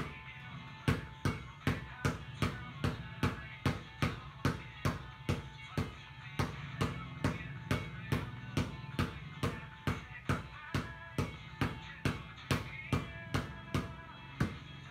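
A basketball being dribbled hard on a wet tiled floor: sharp, steady bounces about two and a half a second, starting about a second in, over soft background music.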